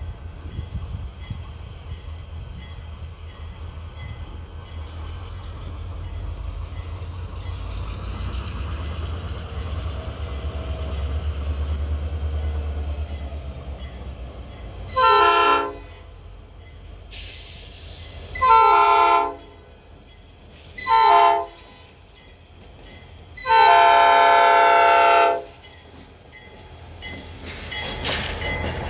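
Bessemer and Lake Erie diesel locomotives 878 and 905 approach with a low engine rumble that builds, then sound a multi-chime air horn four times: long, long, short, long. This is the standard grade-crossing warning. Track and wheel noise rises again near the end.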